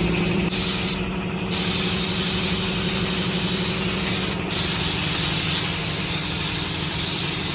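Paint spray gun hissing as paint goes onto the car body, with short breaks about a second in and again about four and a half seconds in where the trigger is let off. A steady motor hum runs underneath.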